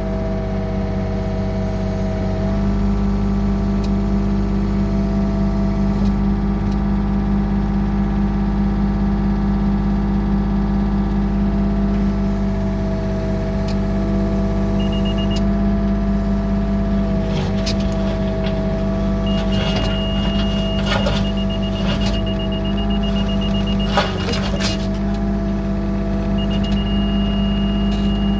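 Yanmar excavator's diesel engine running steadily, heard from the cab, with the bucket scraping and clattering through gravel in the second half and one sharp knock. A Trimble CR600 laser receiver on the stick sounds a high tone: a short beep, then rapid beeping for several seconds, then a steady tone near the end.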